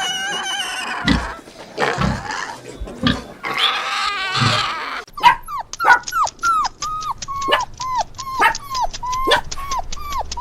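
Animal calls: harsh, rasping vocalisations for the first half, then a run of short calls about two a second, each falling in pitch.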